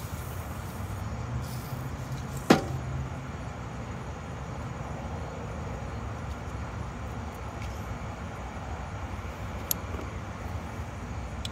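A steady low background rumble, with one sharp click about two and a half seconds in and a fainter tick near the end.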